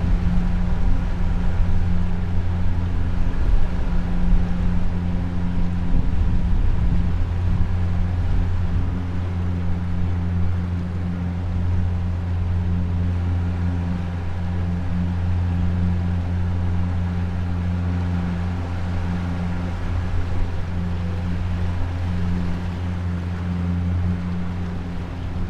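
Jet-drive outboard motor of a tunnel-hull jet boat running steadily under way, a constant low engine drone with water noise underneath.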